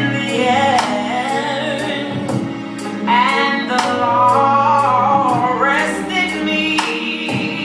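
Gospel song with a woman singing over held chords and a steady beat.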